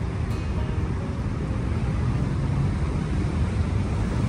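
Steady low outdoor rumble with no distinct events, most likely wind on the microphone mixed with distant traffic.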